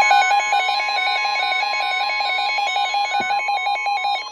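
Weather radio warning alarm: a steady single-pitched tone near 1 kHz, the 1050 Hz tone that precedes a warning broadcast, with a second beeping tone stepping between pitches several times a second over it. A single knock about three seconds in, and the steady tone cuts off at the very end.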